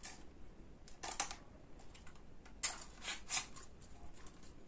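Plastic clicks and scrapes as the battery is pulled out of an SMRC ICAT5 folding drone: a few short, faint clicks spread over several seconds.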